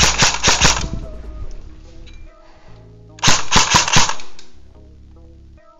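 Airsoft rifle firing two full-auto bursts of rapid shots. The first burst stops about a second in; the second, about a second long, comes a little after three seconds in.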